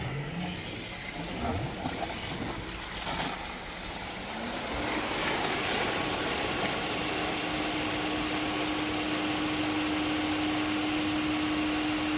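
Swimming pool filter pump motor starting up about four and a half seconds in, its hum rising in pitch and then running steadily with water rushing through. A few knocks come before it starts.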